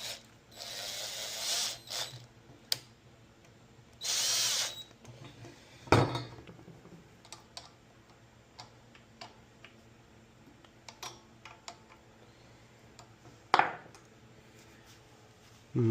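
Two short bursts of a small handheld power tool, then the clicks and knocks of small metal and plastic parts being handled, with a loud sharp knock about six seconds in and another near the end.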